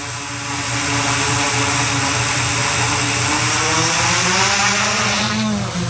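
Large camera-carrying multirotor drone's electric motors and propellers spinning on its landing stand with a steady whir, some of its tones rising in pitch about four seconds in.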